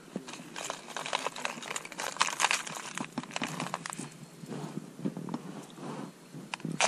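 Hard plastic wobbler lures clicking and rattling against each other and against a plastic compartment tackle box as they are picked through by hand, in a quick irregular clatter with a sharper click near the end.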